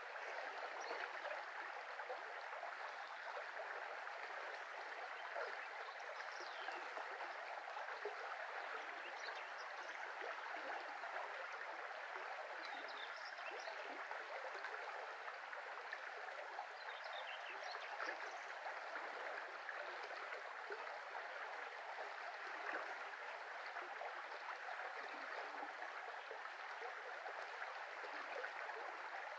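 Shallow brook flowing steadily, an even rush of running water.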